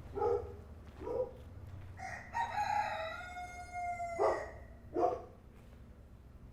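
A rooster crowing once, a long call of about two seconds, with short calls from barnyard animals a little before and just after it.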